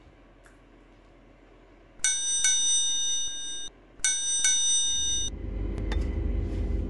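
An edited-in bell sound effect rings twice, about two seconds apart. Each ring is a quick double strike that then holds a bright, sustained ringing. From about five seconds in, a steady low hum of room noise comes in.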